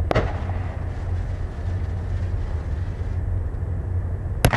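A consumer fireworks mortar shell fires from its tube with one sharp launch pop, over a steady low rumble. Near the end a second sharp bang goes off as crackling begins.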